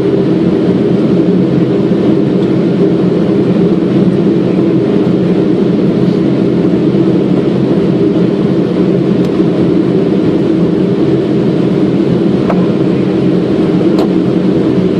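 Steady, loud cockpit noise of a Boeing 777 on approach: airflow and engine sound, with a couple of faint clicks near the end.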